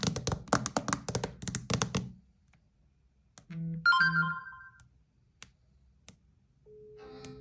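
Smartphone handling: a quick run of taps and knocks lasts about two seconds. Then come two short low buzzes with a brief electronic chime about four seconds in. A synthesized ringtone melody begins near the end.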